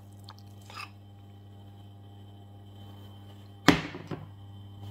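A single sharp clatter of kitchenware about three-quarters of the way in, followed by a lighter click, over a steady low hum.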